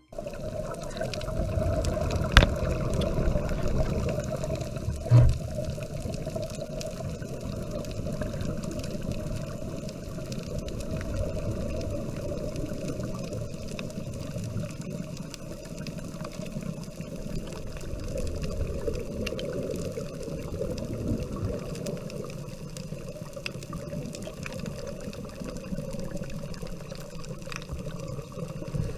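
Muffled underwater rushing and bubbling from scuba divers' exhaled air, heard through a GoPro's waterproof housing, with two sharp knocks about two and five seconds in.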